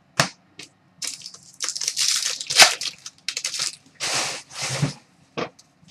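A trading-card pack wrapper being crinkled and torn open, with cards being handled. A long stretch of crinkling starts about a second in, two shorter bursts follow near the end, and a few sharp card taps sit between them.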